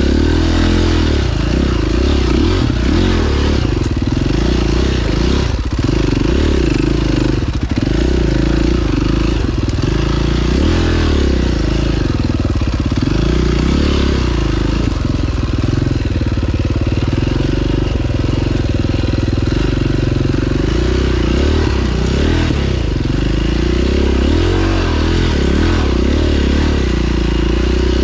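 2009 KTM 530 EXC single-cylinder four-stroke dirt bike engine, revving up and down again and again as it is ridden along a trail.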